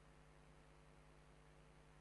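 Near silence: a faint steady hum with hiss underneath.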